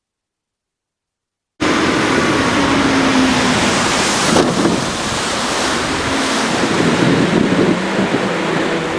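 Silence, then about a second and a half in a loud rush of water and wind on the microphone, as from a boat under way, cuts in abruptly and runs on steadily.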